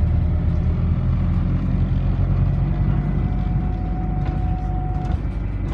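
Alexander Dennis Enviro400 double-decker bus running, heard from inside the passenger saloon as a steady low engine and drivetrain rumble. A thin, steady whine comes in about three seconds in and stops about two seconds later.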